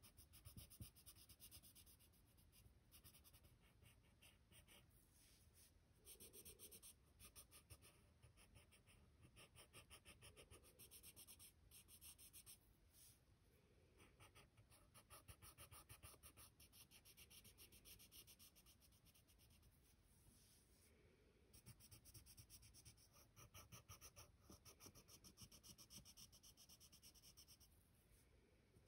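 Faint pencil scratching on paper: quick back-and-forth strokes in spells of a few seconds, with short pauses between.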